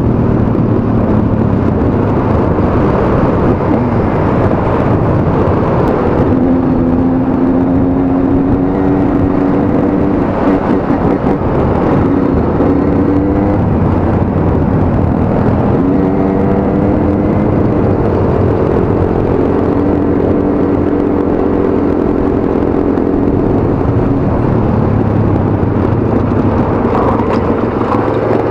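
Dirt bike engine running under way, its pitch rising and falling with the throttle and gear changes, over a steady rushing noise.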